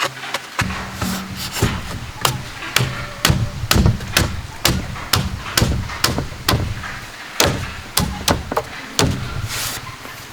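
Repeated sharp blows of a tool striking bamboo, about two a second, in a steady working rhythm.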